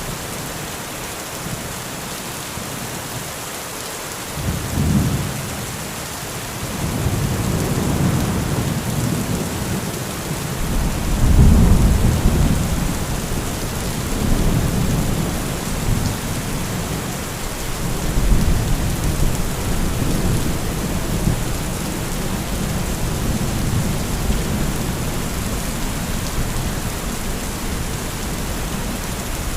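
Heavy rain falling steadily, with thunder: a short clap about five seconds in, then long rolling rumbles from about seven seconds on, loudest around twelve seconds.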